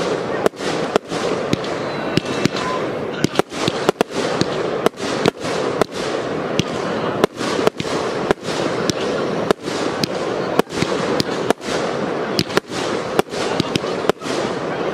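Fireworks batteries firing an aerial barrage: a rapid run of sharp bangs, several a second, over a continuous rush of crackle and noise.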